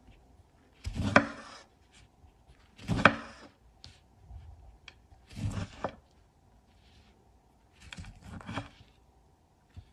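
Kitchen knife slicing through an orange on a wooden cutting board: four cuts, about two to two and a half seconds apart.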